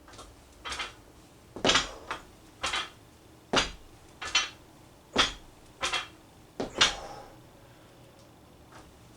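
Loaded barbell clanking during bent-over rows, a short knock about once a second with each rep. There are about eight, and they stop about seven seconds in.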